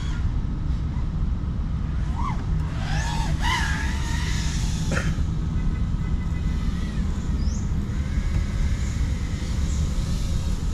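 FPV racing quadcopter in flight: a faint motor whine that wavers up and down in pitch with the throttle, over a steady low rumble.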